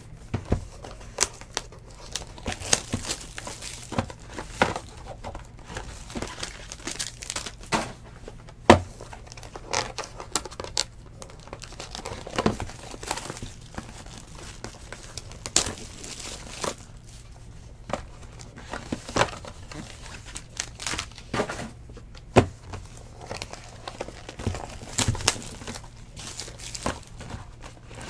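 Foil and plastic wrappers on packs and boxes of baseball cards crinkling and tearing as they are opened by hand, with many short, sharp crackles and taps at irregular moments.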